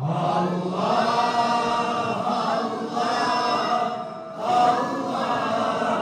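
A chorus of voices chanting a Turkish Sufi hymn (ilahi) together, with a short breath-break about four seconds in.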